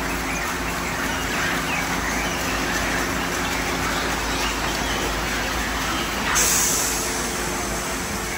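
Car wash tunnel equipment running: rotating foam wrap-around brushes scrubbing a car under a steady wash of spray hiss, with a steady low motor hum. A louder burst of hiss comes about six seconds in.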